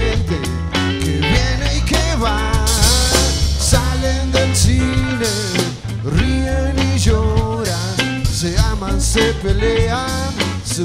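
Live rock band playing a song: a man singing into a microphone over acoustic guitars and a drum kit.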